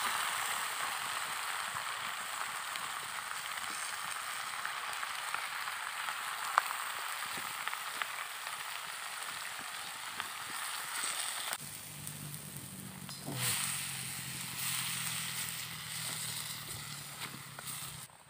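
Wild spiny amaranth leaves sizzling as they stir-fry in a pan over a wood fire, with a few sharp snaps, one louder about six and a half seconds in. About two-thirds of the way through the sizzle stops abruptly, and a quieter low steady hum remains.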